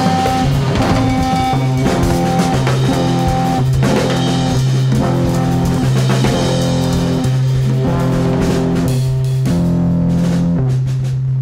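Live jazz-funk band: a drum kit with cymbals played hard under electric guitar and low held notes. Near the end the drumming thins out and the band holds a sustained note that rings on.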